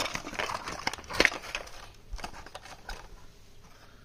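Thin cardboard packaging being torn open and crinkled by hand: a run of sharp crackling rips, loudest at the start and again about a second in, thinning out to light rustling handling near the end.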